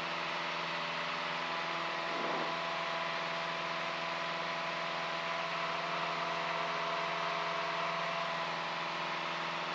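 Piper Cherokee's piston engine and propeller droning steadily at climb power, heard from inside the cockpit.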